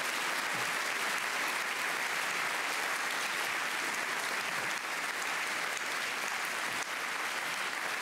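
Large seated audience applauding, a dense, steady clapping.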